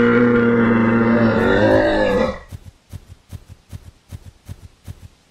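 Rhinoceros call: one long, low bellow held at a steady pitch for about two seconds, cutting off fairly abruptly. It is followed by soft regular pulses, about three a second.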